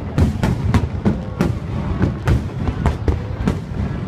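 High-altitude aerial fireworks shells bursting in quick, uneven succession, about two or three sharp bangs a second over a continuous low rumble.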